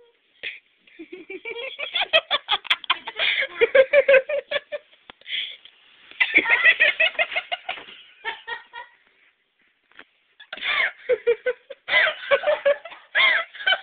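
Young women laughing in fits of rapid giggles, with a pause of about a second and a half about nine seconds in before the laughter starts up again.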